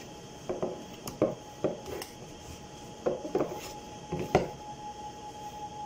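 White plastic baby-bottle sterilizer container knocking and clattering as it is handled and scrubbed at a kitchen sink: a string of irregular knocks, the loudest about four seconds in.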